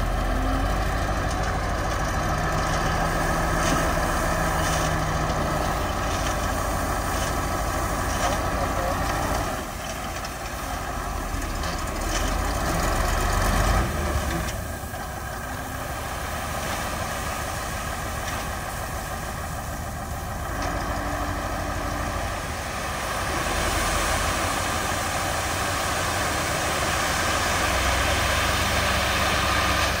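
Heavy diesel engines running steadily: a dump truck idling while it tips its bed of gravel, with a crawler bulldozer working in the background.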